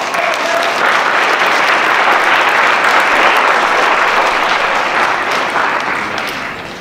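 Audience applause, coming up quickly, holding, then dying away over the last couple of seconds.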